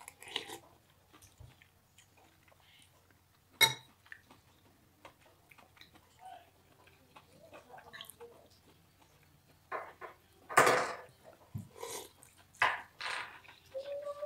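Slurping noodles and spicy seafood broth off a metal spoon, with a sharp, ringing clink of the metal spoon against the ceramic bowl about four seconds in. A run of loud slurps of broth comes near the end.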